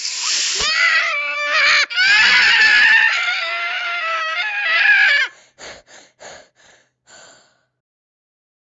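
A high-pitched cartoon voice screams, wavering, for about five seconds. It breaks off into a few short, fading bursts.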